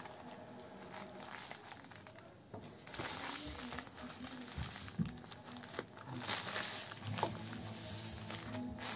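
Plastic courier mailer bag crinkling and crackling as it is handled, louder from about three seconds in.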